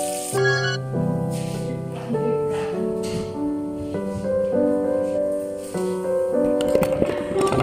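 Background piano music: a gentle melody of single notes over held chords. A few sharp clicks near the end.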